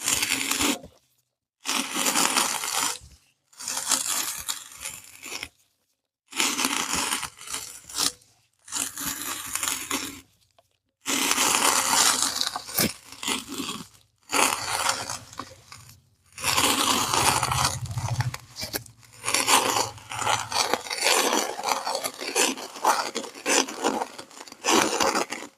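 Kinetic sand being crushed and squeezed through a meat grinder, a grainy crunching and scraping. It comes in a series of short takes of a second or few each, broken by brief dead silences between them.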